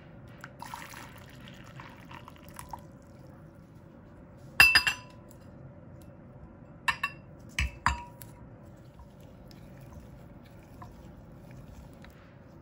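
A glass measuring cup of white chocolate chips knocking against the glass bowl of water it is set into. There is a loud cluster of ringing glass-on-glass clinks about four and a half seconds in, then four lighter clinks between about seven and eight seconds, with faint water sloshing in the first couple of seconds.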